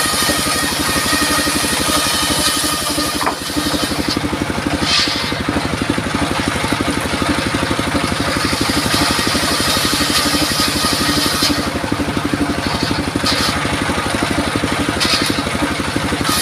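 Engine-driven circular saw for cutting timber, running steadily, with the fast, even pulse of its engine and a high hiss that rises and falls.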